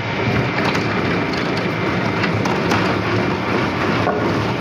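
Wood-cutting saw machinery running: a dense, steady crackling noise with scattered sharp clicks.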